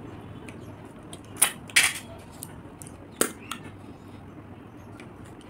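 A few short, sharp clicks and taps of cooked river snail shells being handled as the meat is picked out with a toothpick.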